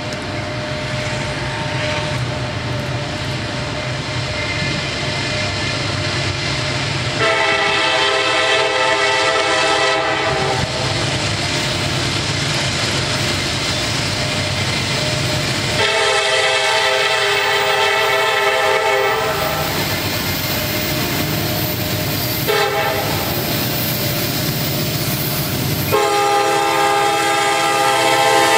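CSX diesel freight locomotive approaching under a steady engine rumble, its multi-tone air horn sounding two long blasts, a short one and a final long one: the standard grade-crossing signal.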